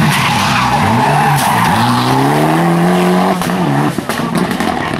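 Rally car's engine revving hard as it accelerates out of a bend, its pitch climbing steadily and then dropping sharply a little over three seconds in as the driver changes gear, with tyres skidding on the tarmac. The engine then fades as the car pulls away.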